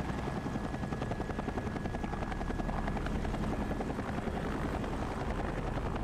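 Helicopter in flight: the steady, rapid beat of its rotor blades.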